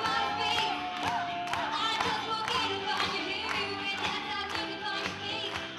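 A woman singing into a microphone, backed by a live band with drums keeping a steady beat. She holds one long note over the first second and a half.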